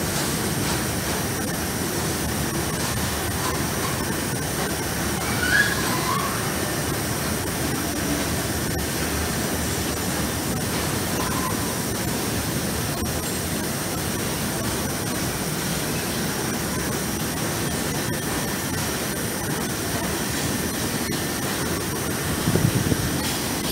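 Intermodal freight train's container wagons rolling past, a steady rumble of wheels on rail. A brief high squeal comes about five seconds in, and a few knocks near the end as the last wagons pass.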